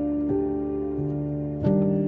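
Slow piano background music with held chords, a new chord struck near the end.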